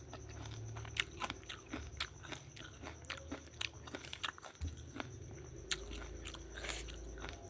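A person chewing and crunching a bite of raw eggplant lalapan dipped in sambal, with many irregular crisp crunches and wet mouth clicks.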